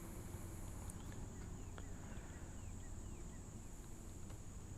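Faint outdoor pond-side ambience: a steady, high-pitched insect drone with scattered faint bird chirps.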